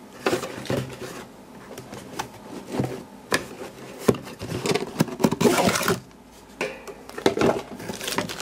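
Hands rummaging in a cardboard box: irregular knocks, scrapes and rustles of cardboard flaps and packed items being moved, busiest about five to six seconds in.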